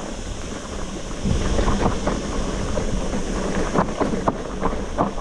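Wind buffeting the camera microphone over the rumble of mountain bike tyres on a rough gravel trail, with scattered rattles and knocks from the bike; the rumble gets louder about a second in.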